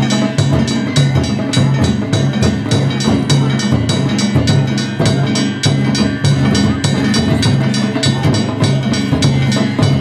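Danjiri float music (narimono): taiko drums and hand-struck kane gongs beating a fast, steady rhythm, the high ringing of the gongs over the drum beat.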